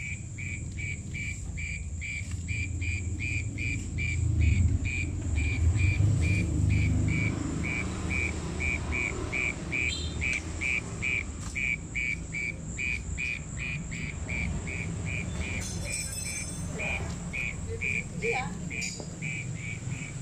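An insect chirping in a steady regular series, about three short chirps a second, over a steady high-pitched hum. The filmer takes the singer for an orong-orong gentong, a mole cricket, while another person says it is an ordinary cricket. Low rumbling rises between about four and seven seconds in.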